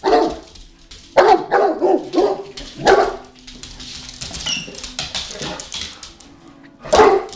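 Bullmastiff barking at a radio-controlled toy rat that frightens him: a run of short barks over the first three seconds, then quieter sounds, then one more bark near the end.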